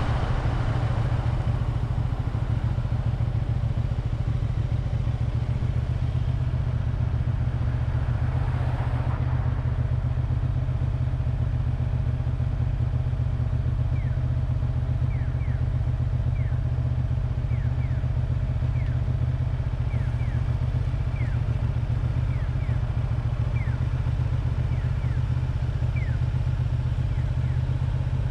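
1985 Honda VT250F Integra's V-twin engine running steadily at a low, even pitch, without revving. A brief swell of broader noise comes about nine seconds in, and faint short high chirps sound over the second half.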